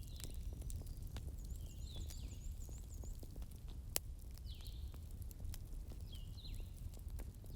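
Wood fire burning with a low steady roar and scattered sharp crackles and pops, the loudest about 4 s in. A bird chirps several short, falling calls over it.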